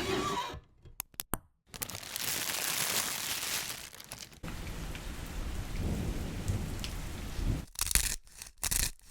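A run of short field-recorded sound effects cut together: a few sharp clicks, then several seconds of steady rushing noise with a cut to another noisy clip partway through, then a few brief bursts near the end.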